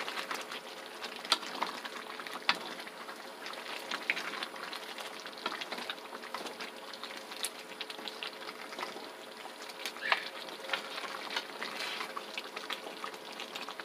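Chili-paste chicken stew simmering and bubbling in a pan while two wooden spatulas stir and turn it. Scattered clicks and scrapes of wood against the pan run through it.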